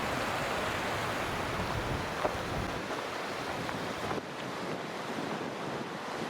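Steady rushing outdoor noise, even and unbroken, with a few faint clicks or knocks.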